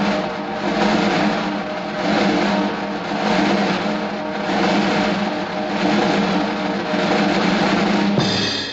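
Loud background music laid over the footage: a dense, distorted sound with held chords and a beat that swells about once a second. It changes shortly before the end and then cuts off.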